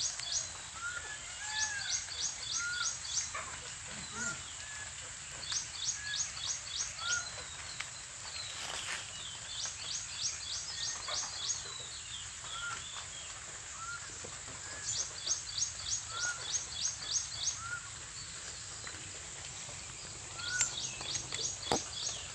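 Outdoor bird ambience: short rapid trills of about seven quick notes, repeating every few seconds over a steady high hiss, with soft short chirps in between.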